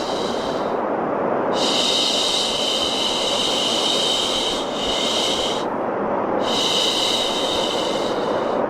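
Long 'shhh' shushing sounds, repeated with short breaks between them, over a steady hiss of white noise.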